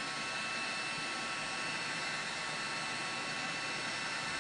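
Electric heat gun running steadily, its fan blowing a hot-air stream with an even whoosh and a faint steady whine, as it shrinks heat-shrink tubing over a crimped cable contact.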